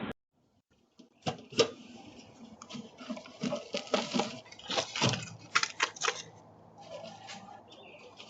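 A run of irregular clicks, taps and clattering knocks, starting about a second in, heard through a doorbell camera's microphone, with a faint low hum under the second half.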